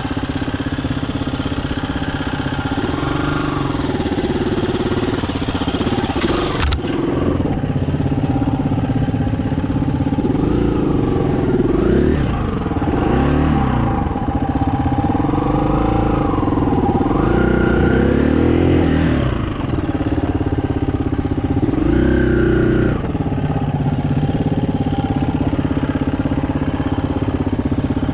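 Dirt bike engine running at low speed under load, its revs rising and falling in short swells as it climbs a rocky trail. A single sharp click about seven seconds in.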